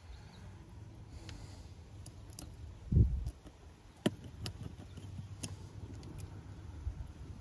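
Light, sharp clicks and taps of small tools and parts handled on an iPhone under repair, over a faint low rumble, with one dull thump about three seconds in.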